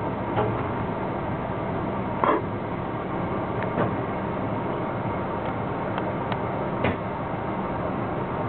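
Metro-North M3 electric train running along the track, heard on board: a steady rumble broken by a few short knocks and clicks, the loudest about two seconds in.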